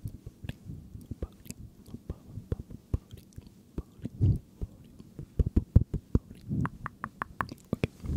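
Close-miked ASMR mouth sounds: a run of wet tongue and lip clicks, coming quickest near the end, with a couple of brief soft breathy whispers that form no words.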